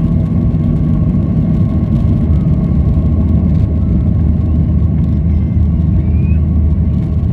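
Boeing 737-800's CFM56-7B turbofan engines running at high take-off/climb thrust, heard inside the cabin: a steady deep rumble with a steady whine on top.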